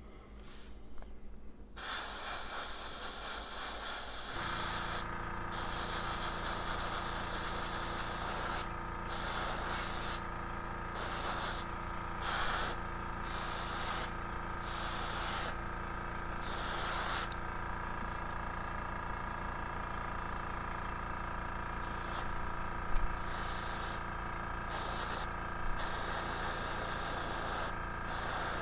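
Gravity-feed airbrush spraying paint in repeated short bursts, a hiss that starts and stops each time the trigger is pressed and released. A steady compressor hum runs underneath from about four seconds in.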